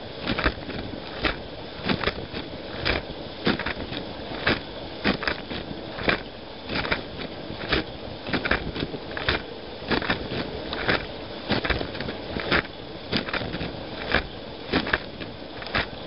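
Running dishwasher heard from inside the tub: wash water spraying and splashing, a steady rushing noise broken by frequent irregular spatters striking the racks and walls a few times a second.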